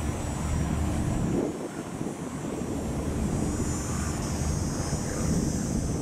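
Wind buffeting the microphone, an uneven low rumble, over a steady high-pitched hiss.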